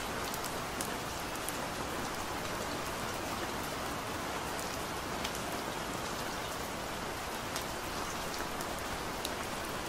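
Steady rainfall: an even hiss of rain with scattered sharp drop ticks.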